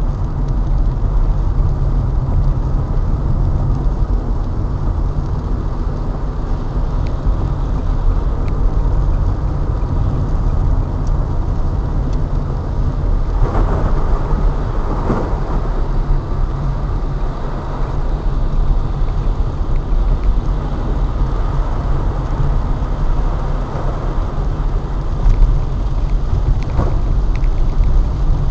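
Steady low rumble of a car driving on a wet road, heard from inside the cabin through a dashcam, with rain in the background. A couple of louder swishes come about halfway through.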